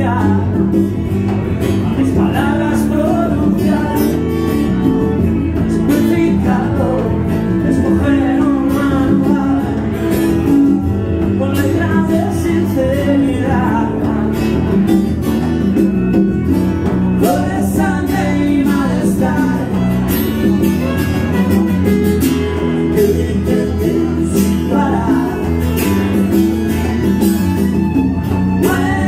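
Live band playing a song, with bowed violin, strummed acoustic guitar and electric bass.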